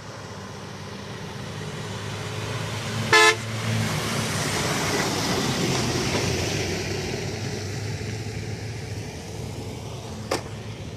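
A vehicle horn toots once, briefly, about three seconds in, as a motor vehicle passes by, its noise swelling and then fading over the next few seconds above a steady low engine hum. A sharp click near the end.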